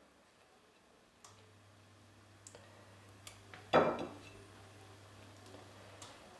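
Light clicks and one louder clink about four seconds in as slices of ham are laid by hand onto an omelette in a nonstick frying pan. A low steady hum starts with a click about a second in and stops about six seconds in.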